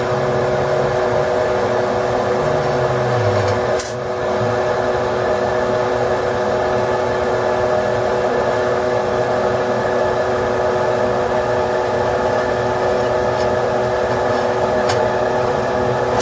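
Steady whirring hum of a fan, with one sharp click about four seconds in and a few faint ticks later.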